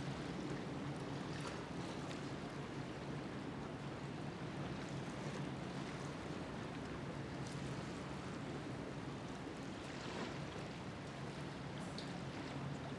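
Waterside harbour ambience: choppy water lapping and wind, over a steady low hum.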